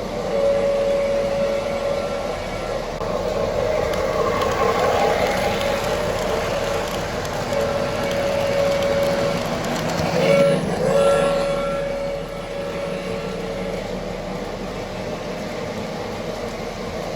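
O gauge model trains running, with a rumbling train sound effect and a held two-note train horn or whistle from the locomotive sound system. The horn or whistle sounds several times, once as a short blast about ten seconds in.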